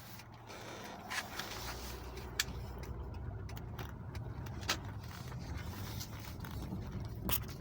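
Car running, heard from inside the cabin: a steady low engine and road rumble, with a few scattered light clicks and knocks.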